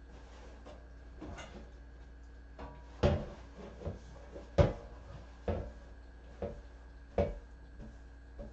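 A series of hard knocks and clunks as objects are handled and set down, about one a second from roughly three seconds in, over a faint steady hum.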